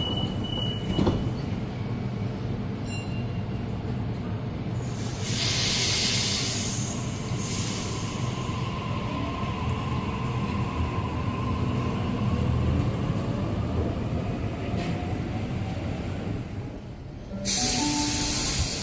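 Electric suburban passenger train at the platform: a steady rumble of wheels on rail with a faint whine that slowly shifts in pitch, and loud hissing twice, about five seconds in and again near the end.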